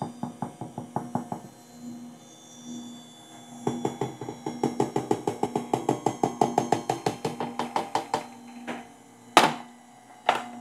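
KitchenAid stand mixer running with a steady hum and a rapid, regular clicking from the beater turning in the steel bowl as flour is added; the clicking grows faster and louder about four seconds in. Two sharp knocks near the end.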